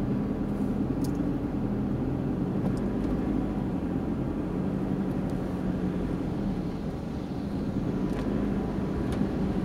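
Steady in-cabin driving noise of a van: engine and tyre rumble with a low hum. It eases slightly about seven seconds in, then picks up again.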